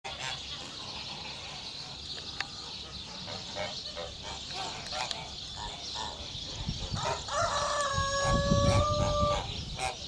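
Farmyard fowl, geese among them, calling in a steady patter of short calls. About seven seconds in, a rooster crows once, a held call of about two seconds, with a low rumble under it.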